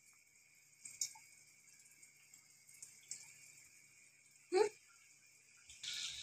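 An anarsa deep-frying in oil in a steel kadhai over low flame: a faint sizzle with a few small pops, and a short falling tone about four and a half seconds in. Near the end the sizzle turns suddenly louder.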